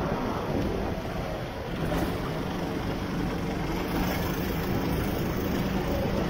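Go-kart engine running on throttle, heard from the driver's seat over a steady rush of wind and wet-tyre spray. The engine eases off briefly about a second in, then picks up again.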